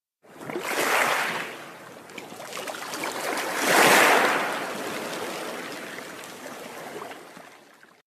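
Rushing-water sound effect, like an underwater plunge: a swell of water noise about a second in, a stronger one about four seconds in, then fading away.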